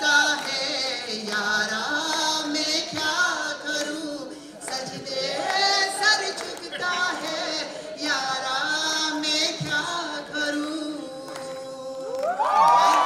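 Women singing a song into microphones over music, amplified through the hall's sound system. Near the end a voice slides up into a long held high note.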